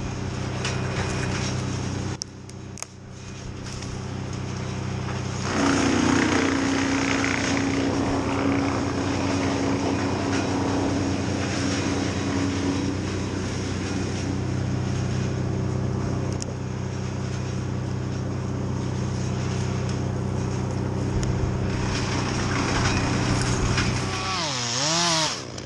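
A small engine running steadily, with its pitch swinging up and down a few times near the end.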